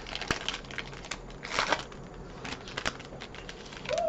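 Foil trading-card booster pack wrapper crinkling and crackling as it is handled and torn open, with scattered small clicks.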